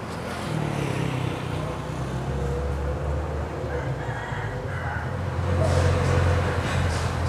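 A rooster crowing, one drawn-out call a few seconds in, over a steady low engine hum.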